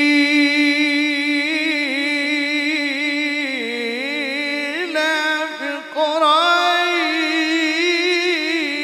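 A man's voice chanting long, held notes with wavering ornaments in the melismatic style of Quran recitation (tilawah). The pitch steps down about three and a half seconds in, and it rises again after a short break near six seconds.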